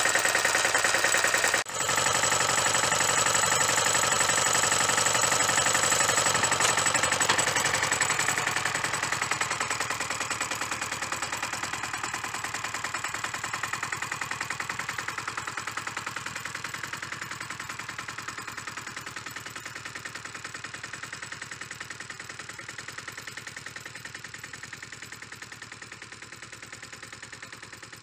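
Two-wheel tractor (motoculteur) engine running with a rapid, even pulsing as it pulls a plough through the soil. It fades steadily as the machine moves away.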